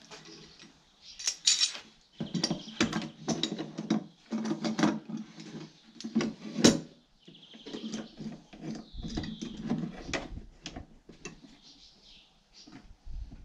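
Metal F-clamps with wooden handles clattering and clicking as they are handled, slid along their bars and fitted onto a wooden box panel. There are irregular knocks of metal on wood, with the sharpest strikes about a second and a half in and near the middle.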